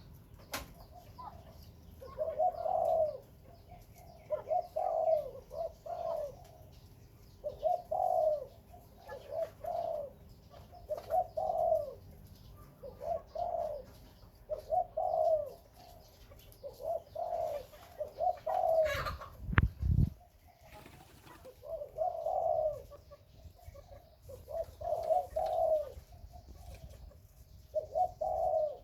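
Dove repeatedly cooing in short, low phrases about every two seconds. About two-thirds of the way through there is a brief low thump.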